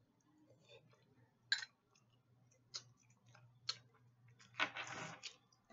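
Someone eating a salad of leafy greens: a few sharp, separate clicks and a short noisy burst about five seconds in, over a faint steady low hum.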